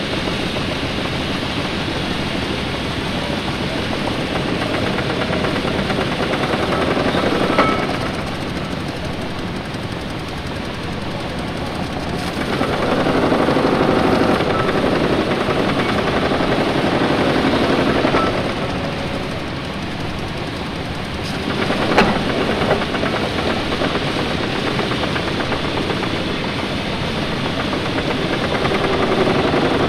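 1911 marine-type triple-expansion steam engine being started by its donkey engine: a rapid, continuous mechanical clatter and chugging that swells louder about twelve seconds in and again near the end. Sharp clanks come about seven seconds in and again about twenty-two seconds in.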